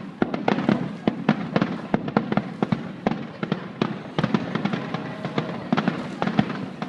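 Aerial fireworks going off in a rapid barrage of sharp bangs and crackles, several a second.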